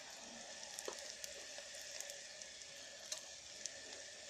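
Onions and spices frying in hot oil in an electric kettle: a steady, faint sizzle with scattered small crackles.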